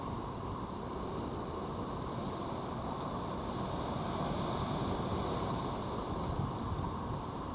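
Steady outdoor background noise: a low rumble with hiss over it, swelling slightly partway through, with no distinct events.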